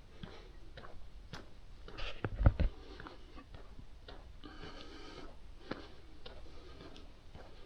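Footsteps of someone walking at an even pace, about two steps a second, picked up by a body-worn action camera. About two seconds in, a louder low rumble, like a knock or a gust on the microphone, briefly covers the steps.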